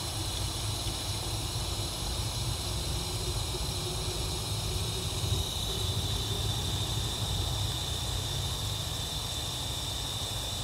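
Water from a garden hose wand running steadily into a plastic spray bottle, filling it, with a faint tone slowly rising in pitch partway through.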